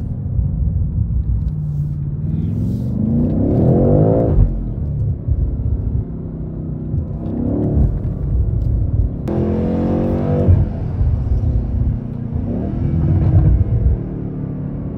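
BMW M8 Competition's twin-turbo 4.4-litre V8 pulling hard, heard from inside the cabin. The revs climb and fall back four times, the third surge starting suddenly.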